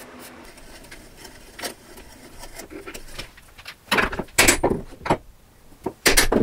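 Chisel paring walnut by hand: light knocks and handling sounds, then a run of quick scraping cuts about four seconds in and another just before the end.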